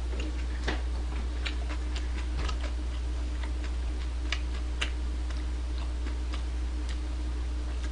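Close-miked chewing of fried chicken: scattered, irregular faint crunches and mouth clicks, over a steady low electrical hum.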